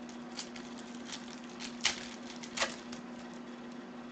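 Foil wrapper of a Select basketball card pack being torn open and the cards handled: soft crinkling and rustling with two short, sharp tearing sounds about two seconds in and half a second later. A steady low hum runs underneath.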